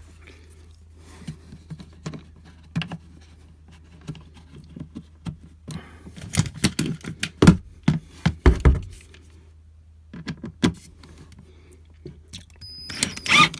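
Irregular small clicks, rattles and knocks of a screw being driven by hand into a plastic RV toilet flush valve, busiest from about six to nine seconds in, over a steady low hum.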